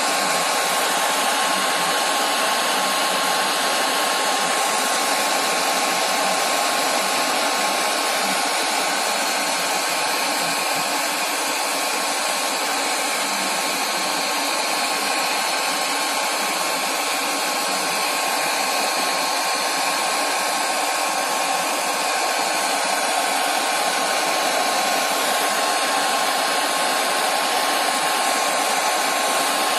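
Hair dryer running steadily, blowing hot air through a makeshift metal tube nozzle to heat a phone's LCD and soften its adhesive; a constant rush of air with a faint steady whine.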